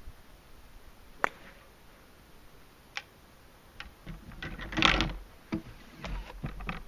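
A golf driver striking a ball off the tee: one sharp crack about a second in. It is followed near the end by a run of small clicks and knocks.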